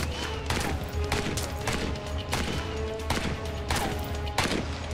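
STG-44 assault rifle, chambered in 7.92×33 mm Kurz, firing a string of single shots about two a second at a target. A low music bed with held tones runs underneath.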